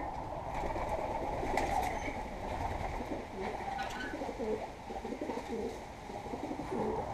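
Domestic pigeons cooing: a string of low coos that rise and fall in pitch, coming thicker from about three seconds in, with a light click or two.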